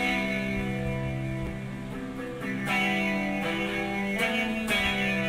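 Electric guitar played through a small amp, strumming chords struck anew a few times, with a violin bowing sustained notes alongside.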